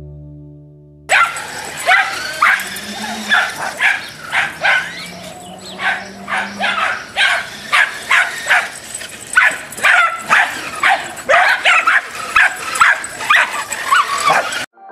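A litter of dachshund puppies yapping, with short high-pitched barks and yips about twice a second, often overlapping, starting about a second in and cutting off suddenly near the end.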